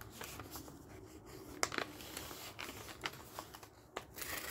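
Paper rustling faintly as it is handled and set against a tanto's sword blade, with a few small clicks. Near the end the blade starts slicing through the folded paper in a louder swishing rasp.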